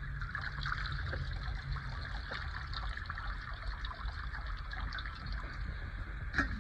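Water trickling and dripping as boiled spinach is lifted out of its cooking water to drain.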